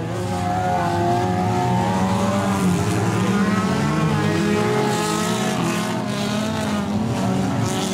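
Several stock car engines running hard together, their pitches rising and falling as the cars race past and change speed.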